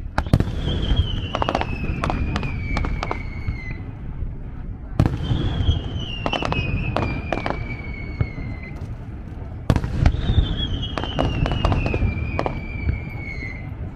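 Fireworks display: three sharp bursts about five seconds apart, each followed by a long whistle that falls slowly in pitch, with scattered crackling pops and a low rumble underneath.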